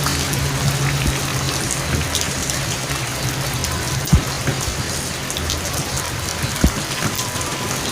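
Steady rain falling, with scattered drop ticks and two sharper drop hits, one about four seconds in and one near the end. A low vehicle engine hum fades out in the first second or two.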